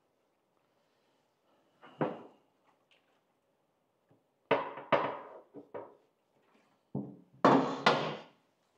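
Handling noises: a few short knocks and clunks, then a louder rubbing scrape lasting under a second near the end.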